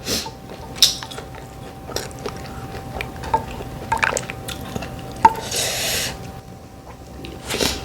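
Close-up eating of mussels: wet squishing and smacking mouth sounds with scattered small clicks of shell or utensil, and a short slurp a little past halfway.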